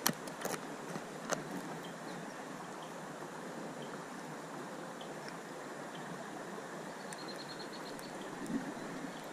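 Steady rushing of a trout stream's flowing water, with a few sharp clicks and knocks from handling the fish and rod in the first second or so.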